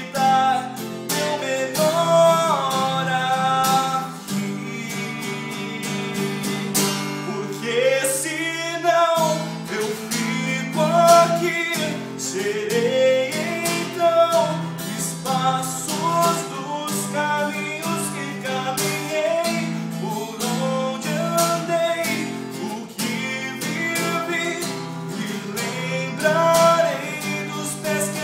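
A man singing to his own strummed Giannini cutaway steel-string acoustic guitar, with steady chord strumming under a sung melody.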